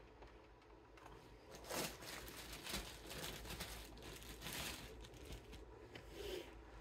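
Window screen mesh crinkling and rustling as it is handled, in a run of irregular scrapes from about two seconds in to about five seconds in, with a smaller one near the end.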